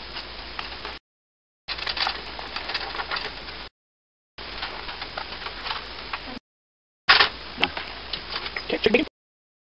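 Wooden spatula scraping and clicking against a frying pan as eggs are scrambled, over a faint hiss. The sound cuts out to dead silence four times, each time for under a second.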